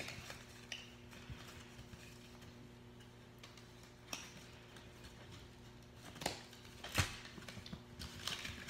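Faint clicks and taps of a small cardboard box and a plastic display dome being handled as the dome is slid out, the loudest two about six and seven seconds in, over a low steady hum.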